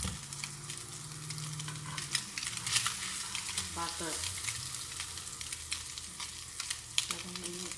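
Bread slices frying in butter in a non-stick grill pan, sizzling steadily, with a few sharp clicks of a metal spatula and fork against the pan as the slices are worked.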